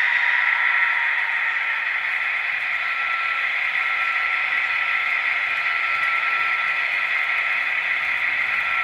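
H0-scale model trains running on a layout: a steady whirr of small electric motors and wheels rolling on the track, with a faint steady motor whine.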